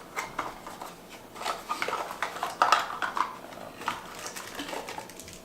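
Camera-box packaging being handled while unpacking: irregular crinkling of paper and plastic wrap, with light clicks and taps of small accessories.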